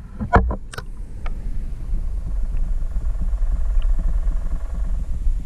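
Muffled underwater sound from an action camera held under the lake surface: a couple of sharp splashes as a crappie is let go in the first second, then a steady low throbbing rumble of water on the submerged microphone, with a faint hum.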